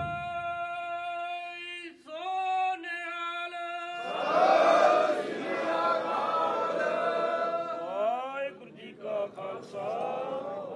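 Sikh congregation singing devotional chant in unison. A single voice holds a long steady note, then moves through shorter sliding notes; about four seconds in, many voices join at their loudest, and the singing trails off in gliding notes near the end.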